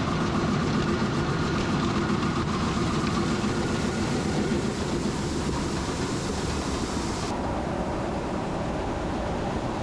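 Farm machinery running steadily, a mechanical drone with no clear changes in pace. About seven seconds in the sound changes slightly and loses some of its hiss.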